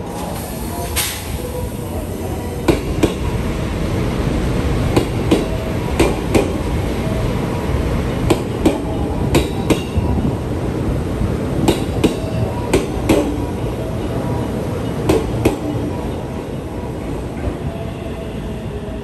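A JR West electric train running past on the near track, its wheels clicking over rail joints in double clicks, about eight pairs, over a steady rumble that swells towards the middle.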